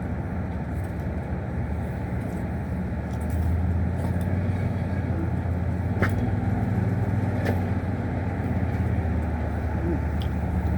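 Steady low hum of a motor vehicle's engine running, growing a little louder about three seconds in, with a couple of faint clicks.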